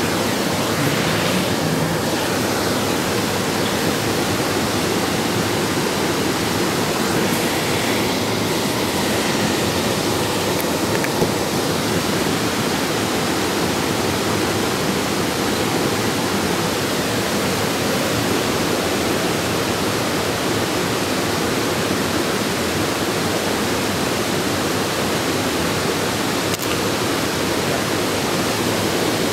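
Water rushing steadily over a small waterfall cascade on a creek.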